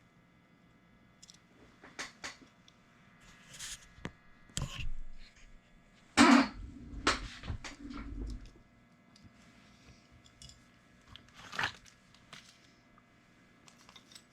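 Small objects handled on a workbench: scattered clicks, knocks and rustles, the loudest a knock with a scrape about six seconds in, then a sharp click near twelve seconds.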